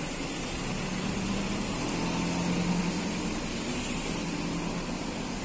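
Steady low engine hum and road traffic noise, with a car driving past.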